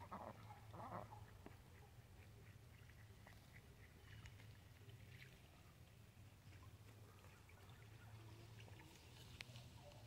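Faint domestic ducks quacking, with two quacks in the first second, then only faint scattered sounds over a low steady rumble.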